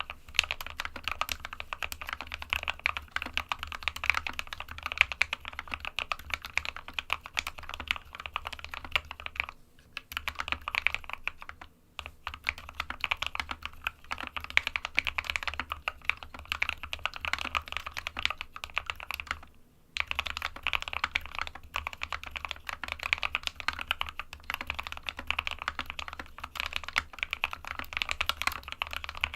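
Fast, continuous typing on a computer keyboard, dense key clicks with short breaks about ten, twelve and twenty seconds in.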